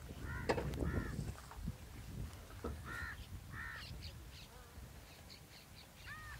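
Birds calling outdoors: short arched calls, crow-like caws, come singly or in pairs with pauses between them, and fainter high chirps fall near the middle. A low rumble runs underneath.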